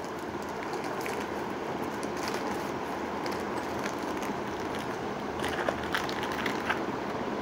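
A steady rushing background noise, with scattered light crinkles and clicks from about five seconds in as plastic packaging is handled.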